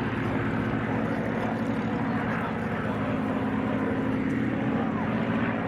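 Piston-engined propeller fighter aircraft in display flight, its engine running with a steady drone.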